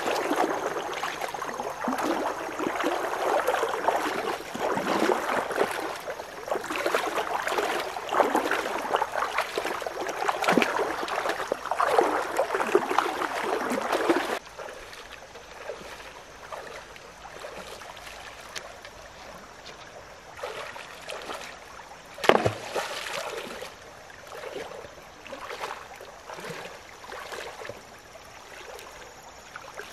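A person wading through a shallow stream, legs sloshing and splashing through the water, loud for the first half. It drops suddenly to quieter sloshing over the running stream, with one sharp thump a little past two-thirds in.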